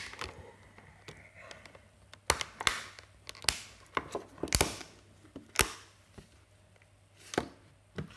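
Plastic back cover of a Nexus 5X being pressed onto the phone by hand: a series of sharp clicks, about six over several seconds, as the cover's clips snap into place and the phone is handled.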